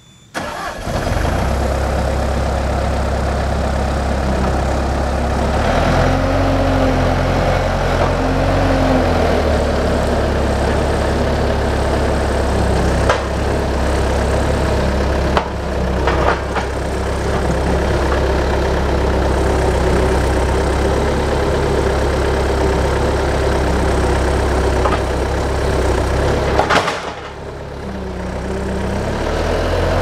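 Bobcat A300 skid steer's diesel engine starting up about half a second in and then running steadily as it works the pallet forks against a log. The engine rises in pitch for a few seconds, there are a few sharp clanks in the middle, and the engine sound drops briefly near the end before coming back up.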